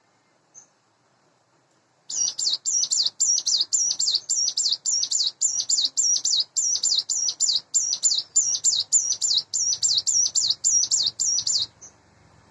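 Ciblek gunung, a prinia kept as a cage bird, singing a fast series of identical high, sweeping notes, about three a second. The song starts about two seconds in and stops near the end.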